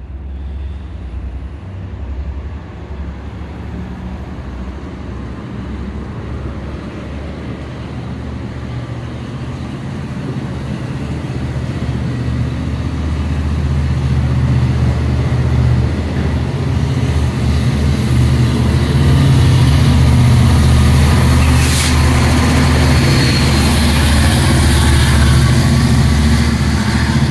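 Long Island Rail Road diesel-hauled train running through a station: a steady low engine hum with wheel and rail noise that grows louder through the second half, and one sharp clank near the end.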